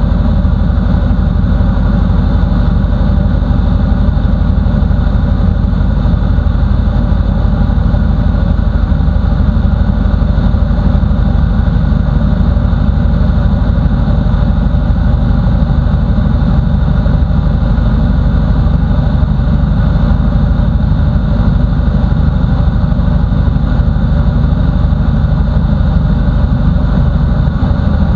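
Mustang II light aircraft's piston engine and propeller running steadily in flight, heard from inside the cockpit as a loud, even drone.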